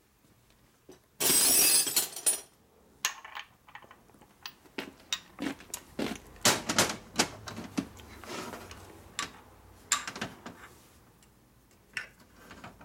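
A loud burst of rushing noise about a second long starts about a second in. It is followed by scattered metallic clinks and knocks of a socket wrench, tools and steel transmission parts on a metal workbench while a gear on a Harley four-speed transmission cover is being tightened down.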